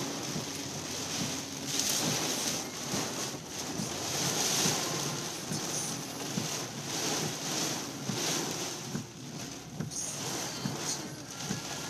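Torrential rain drumming on a car's roof and windshield, heard from inside the car, swelling and easing in gusts.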